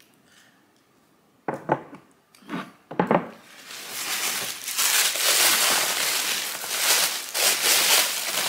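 Packing paper rustling and crumpling steadily as hands dig through it in a shipping box, after a few short knocks, like stones being set down on a wooden table, about two to three seconds in.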